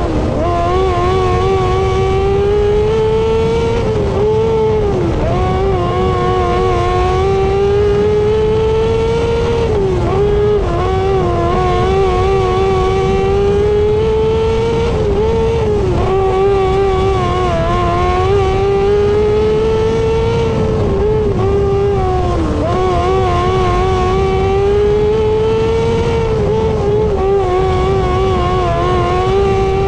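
600cc micro sprint engine at racing speed, its pitch climbing down each straight and dipping sharply as the throttle comes off for each turn, about every five to six seconds, over a steady low rumble.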